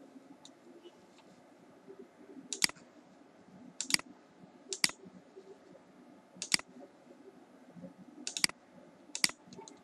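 Computer mouse clicking: about six sharp clicks at uneven intervals of roughly a second, a few of them in quick pairs, over faint room noise.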